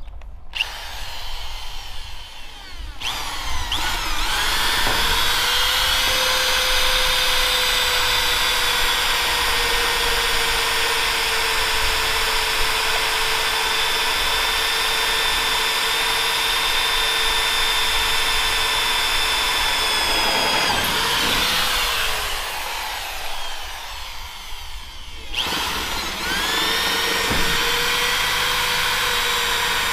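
Corded electric drill boring holes through wooden planks. The motor whine starts about three seconds in, runs steadily with its pitch sagging slightly under load, and winds down after about sixteen seconds. It starts again a few seconds before the end.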